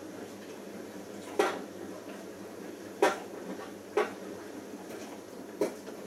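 Siemens IQ1430 front-loading washing machine washing a full load in its easy care prewash cycle: a steady rumble of the drum and water, with four sharp knocks spread over the few seconds as the laundry tumbles.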